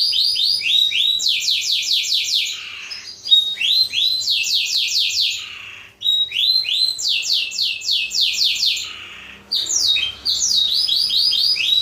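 Blackthroat (black-throated canary) singing rapid trills of repeated sweeping notes, in phrases of a few seconds broken by three short pauses.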